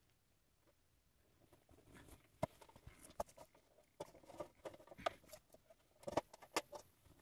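Snow crunching and crackling in irregular sharp clicks that grow busier from about a second and a half in.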